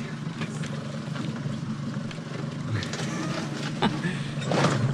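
Outboard boat engines idling with a steady low hum, under faint clicks from a two-speed Shimano reel being hand-cranked. A short rush of noise comes near the end.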